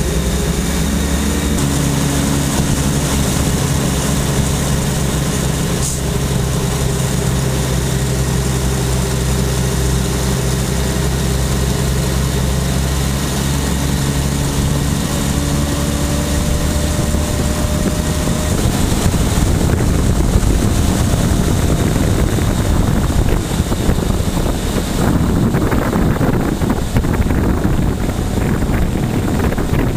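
Steady engine drone and road noise heard from inside a vehicle driving in a convoy of GMC CCKW army trucks. About 19 s in, the engine hum gives way to a louder rushing of wind and road noise.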